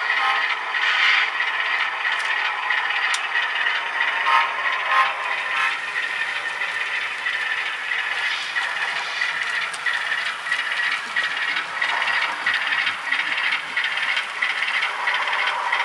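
Model diesel locomotive pulling a string of model freight cars along layout track: a steady rattle and clatter of wheels over the rails, with small clicks throughout.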